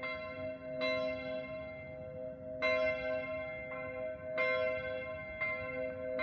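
Church bells ringing: several bells striking in turn, roughly once a second, each strike ringing on over a steady hum.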